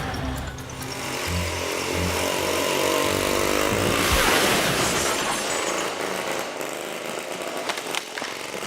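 Harley-Davidson motorcycle engine running, with a loud rushing hiss building up about four seconds in.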